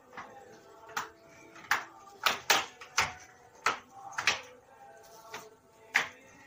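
Inline roller skates knocking and clacking on a concrete floor as a learner steps forward on them, a string of sharp irregular knocks, several close together in the middle.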